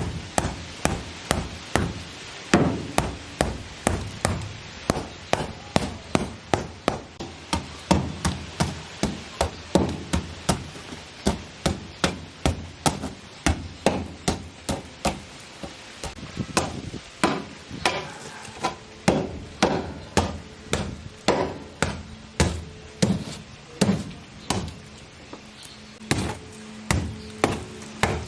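Hammer blows struck over and over in a steady rhythm, about two a second.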